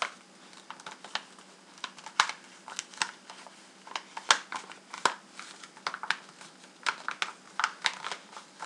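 A rolled paper tube being folded and pressed flat by hand into a small rectangle: the paper crinkles, with irregular sharp crackles as it creases.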